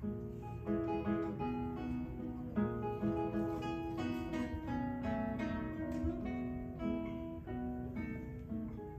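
Acoustic guitar music: plucked notes in a flowing melody over lower notes, a few notes a second.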